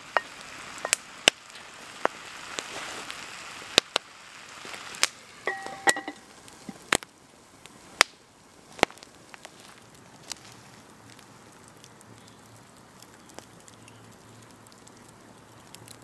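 Lamb and onions sizzling in a terracotta tagine over a campfire while a wooden spoon stirs them, with sharp knocks and clicks. About six seconds in there is a brief ceramic clink as the conical terracotta lid goes on, and after that the sizzle dies down to faint fire crackling.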